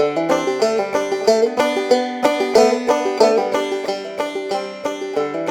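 Bluegrass-style background music led by a fast-picked banjo.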